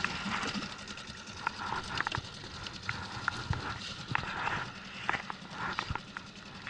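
A small inflatable boat under way: irregular knocks and clatter over a steady hiss of water and wind.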